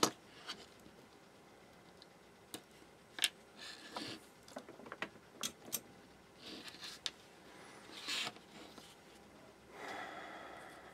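Hands handling a small power-supply circuit board and electrolytic capacitors on a cutting mat: a sharp click at the start, then scattered light taps and clicks, and a short rustle near the end.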